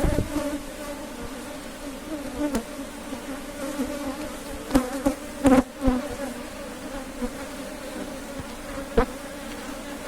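Honeybee colony buzzing steadily in an opened hive, a continuous hum with a few short knocks in between.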